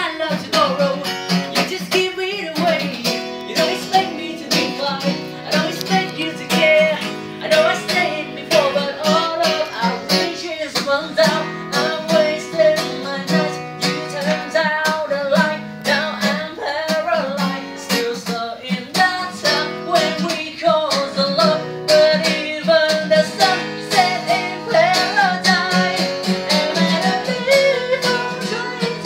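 Acoustic guitar music: a song strummed and picked on guitar, carrying a melody line.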